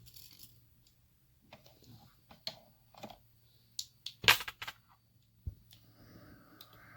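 Irregular small metallic clicks and taps as a picked lock's core is handled and opened up to inspect its pins, with one louder click a little over four seconds in and a dull knock soon after.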